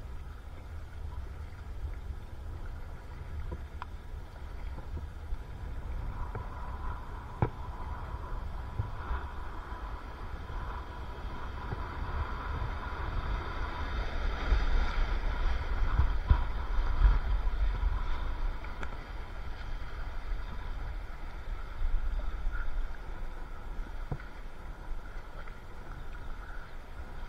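River water rushing and splashing around a kayak, heard from a camera at the waterline with a low rumble from wind and water on the microphone. It swells louder midway as the kayak runs through a whitewater wave, then eases. There is an occasional sharp knock.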